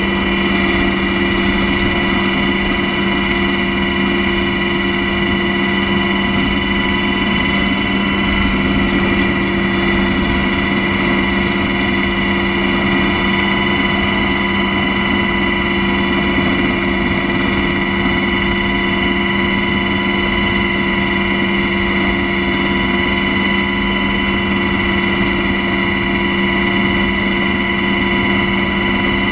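Aircraft turbine engine running at a steady pitch, heard from on board as the aircraft taxis: a constant whine with a low hum beneath it.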